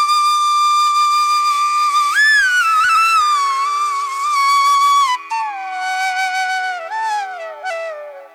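Background music: a flute melody of long held notes with pitch bends over a steady drone, stepping down and fading near the end.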